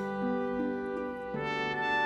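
Background music of held, sustained chords, changing to a new chord about two-thirds of the way through.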